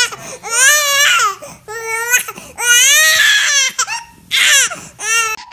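A young baby crying in loud, high-pitched wails, about five cries with short catches of breath between them.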